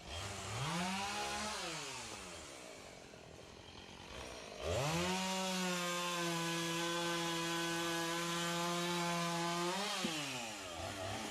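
Chainsaw revved briefly and dropping back near the start, then opened up to full throttle about four and a half seconds in and held steady for about five seconds before easing off.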